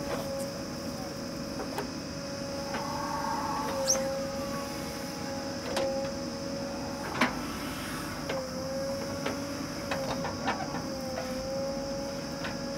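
JCB 3DX backhoe loader at work: its diesel engine and hydraulics run with a steady whine that dips in pitch now and then under load. Sharp clanks from the bucket and arm come through several times, the loudest about seven seconds in.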